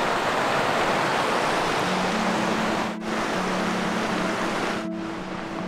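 Stream water rushing in a steady hiss of flowing water. Soft background music with long held notes comes in about two seconds in.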